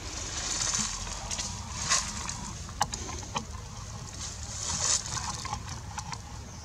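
Outdoor ambience: a steady low rumble under a high hiss that swells and fades a few times, with a couple of sharp clicks near the middle.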